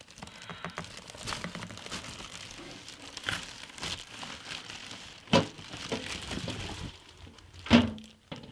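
Packaging crinkling and rustling as it is handled and pulled out of a box, with two louder knocks, one about five seconds in and one near the end.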